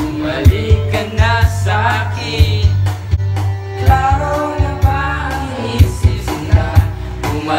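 Karaoke: a man singing into a microphone over a loud backing track with a steady bass beat.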